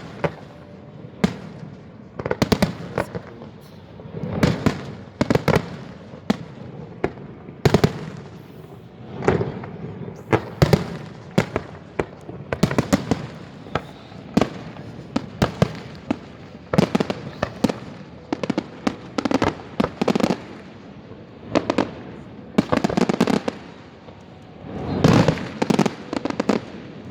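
Fireworks display: aerial shells bursting in a rapid, irregular series of bangs and crackling clusters, some with a short echo after them.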